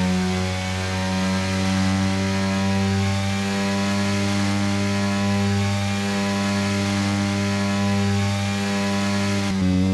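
BMW S1000RR's inline-four engine held at high revs under full throttle, a loud steady howl at nearly constant pitch, with a brief dip and pick-up near the end.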